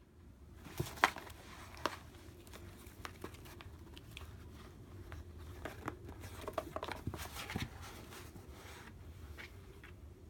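Cardboard box rustling, scraping and tapping as a cat moves and paws around inside it: irregular light knocks and crinkles, with the sharpest taps about a second and two seconds in and a busier run of rustling around seven seconds.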